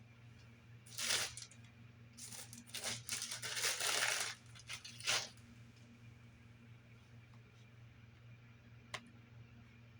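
Rustling and clattering handling noise: a short burst about a second in, a longer stretch from about two to four seconds in, and a single click near the end, over a steady low hum.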